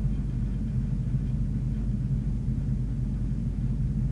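Steady low hum, unchanging throughout, with nothing else sounding over it.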